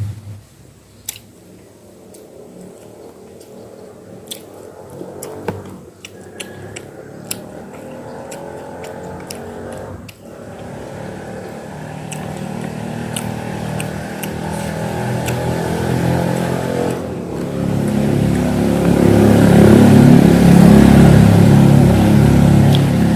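Strong wind buffeting the microphone as a low rumble that builds steadily to a loud peak near the end. In the first half there are a few sharp clicks from eating.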